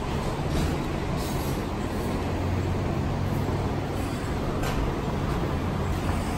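Steady low rumble and hum of an underground light-rail station, with its escalators running.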